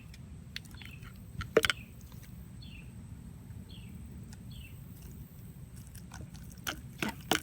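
Homemade clear slime squeezed and worked in the hands, giving sticky clicks and pops, the loudest about one and a half seconds in and again near the end. Faint short high chirps repeat in the background.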